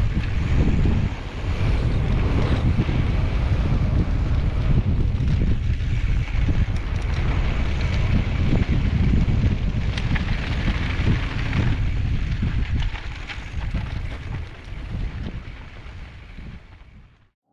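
Wind buffeting the microphone of a camera riding down a dirt trail on a mountain bike, a heavy low rumble with scattered clicks and rattles from the bike and tyres on the rough ground. It fades out near the end.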